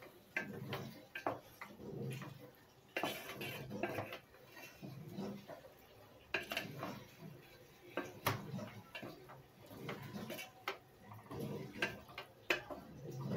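A slotted spatula stirring a thick potato and tomato curry in a metal pot, scraping and knocking against the pot's sides. Irregular strokes, with a few sharp clinks among softer wet stirring.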